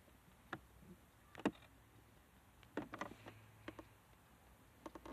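Faint, irregular taps and clicks of a fingertip on a smartphone touchscreen and of the phone being handled, about half a dozen of them, the sharpest about a second and a half in.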